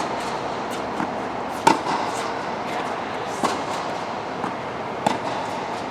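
Racket strikes in a rally: sharp hits about every 1.7 seconds over a steady background noise.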